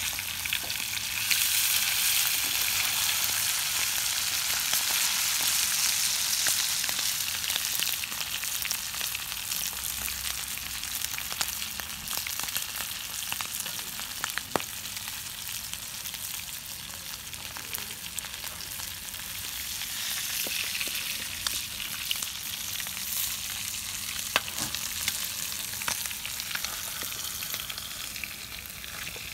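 Trigger fish fillets sizzling as they shallow-fry in hot oil in a frying pan, a steady dense hiss that is loudest in the first several seconds, with a few sharp ticks.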